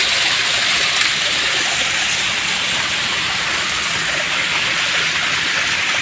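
Small waterfall spilling down a rock face: a steady, hissing rush of falling water.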